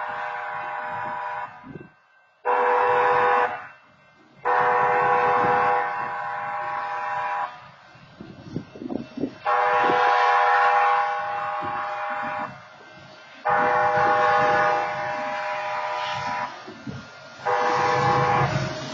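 A diesel freight locomotive's air horn sounds a series of blasts for a grade crossing: one short blast about 3 s in among long blasts of about three seconds each, with brief gaps between them. The locomotive's low engine rumble grows near the end as it draws close.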